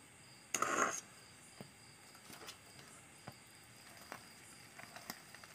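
A short noisy burst about half a second in, then light, scattered clicks and scrapes of a spoon against a stainless-steel bowl as thick cake batter is stirred.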